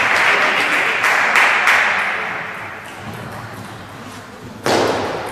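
Spectators applauding after a table tennis point, the clapping fading out over the first two or three seconds; a sudden loud burst of noise near the end.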